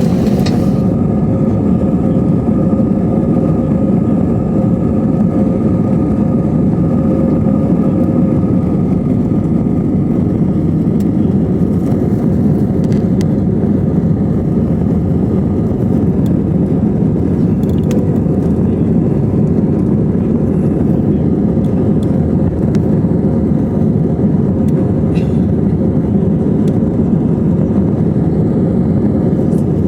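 Steady rumble of jet engines and rushing air heard inside an airliner's passenger cabin, with a faint steady whine over it.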